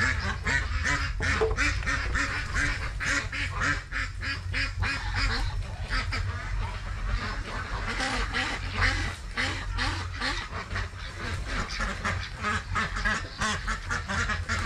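Many ducks quacking in rapid, overlapping calls, over a steady low hum.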